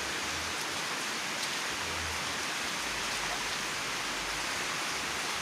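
Steady rain falling, a constant even hiss that cuts off abruptly at the very end.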